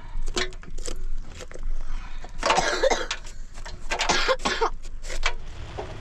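A person coughing, two harsh bursts about two and a half and four seconds in, among short sharp clicks and knocks.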